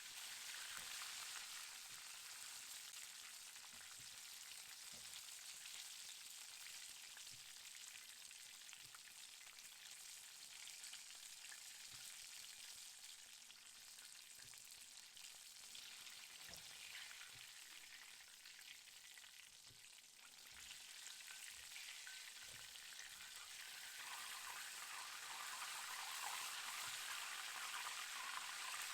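Chicken frying in hot oil: a faint, steady sizzle and crackle that grows louder over the last few seconds.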